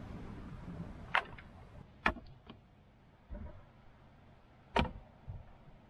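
Wind rumbling on the microphone at first, then several sharp wooden knocks and a few dull thumps as roof poles are laid across a dugout shelter.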